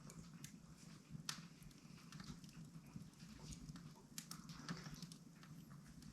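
Wood fire crackling faintly, with irregular sharp snaps and pops; one of the stronger pops comes about a second in.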